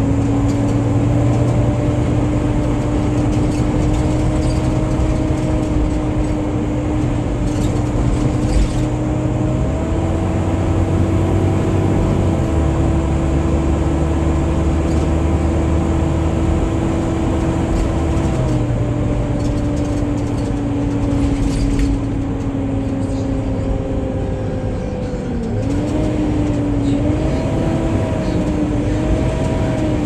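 Volvo B9TL double-decker bus heard from the upper deck while under way: the engine runs with a steady whine of the kind enthusiasts call a 'hoover', like a vacuum cleaner. The whine steps up in pitch about a third of the way in, drops back later, and wavers up and down near the end as the bus changes speed.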